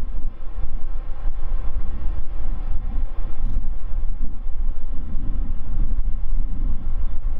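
Boeing 787-9's GEnx turbofan engines running at taxi power: a steady low rumble with faint whine, overlaid by wind buffeting the microphone.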